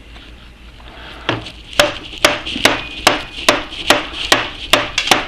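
Rubber mallet blows on the headstock spindle of an Atlas 10F lathe, striking a protective cap over the spindle end to drive the stuck spindle out. After a second's pause come about ten sharp, evenly spaced blows, roughly two a second. The cone pulley seems seized on the shaft.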